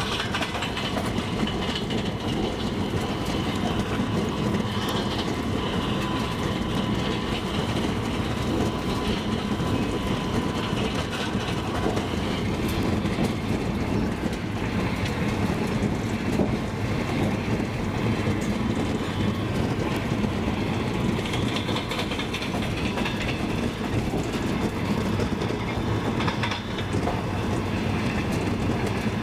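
Double-decker passenger train running steadily, its wheels clacking over the rail joints.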